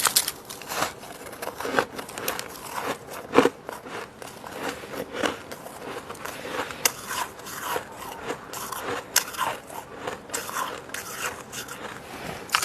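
Fluffy humidifier-made freezer frost being bitten and chewed close to the microphone: irregular soft crunching and crackling, with a louder crunch about three and a half seconds in.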